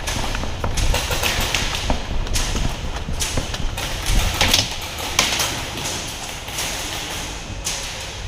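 Scattered thuds and sharp knocks at an uneven pace over a steady low rumble.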